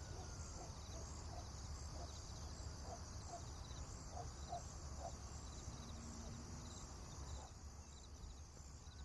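Faint forest ambience: a steady high-pitched, pulsing chorus of insects, with scattered short bird chirps that die away near the end.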